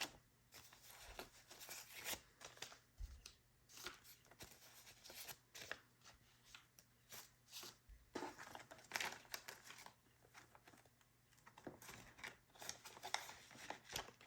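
Paper banknotes and paper cash envelopes being handled: faint, irregular rustling and crinkling as bills are pulled out, counted and sorted.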